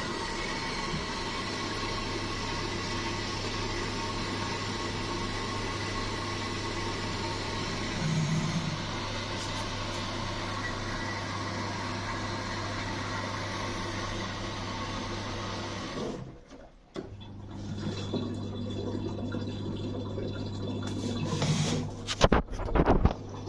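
Electrolux EW1077F washing machine running with water rushing through it over a steady low hum. About two-thirds of the way through the rushing cuts off suddenly, the hum carries on more quietly, and a few knocks come near the end.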